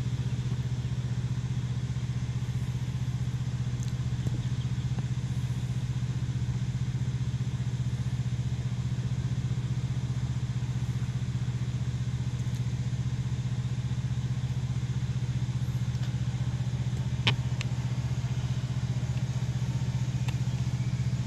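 Steady low hum of an idling vehicle engine, with one sharp click about seventeen seconds in.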